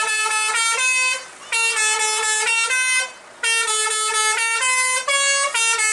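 Telolet basuri musical air horn on a tour bus playing quick runs of changing notes, phrase after phrase, with short breaks about every second and a half.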